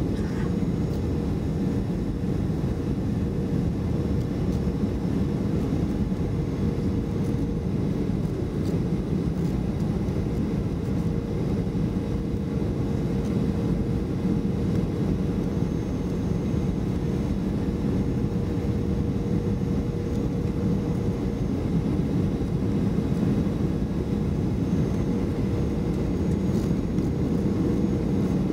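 Cabin noise of a Boeing 737-500 on final approach, heard from a seat by the wing: a steady rumble from its CFM56-3 engines and the airflow, with a steady hum running through it.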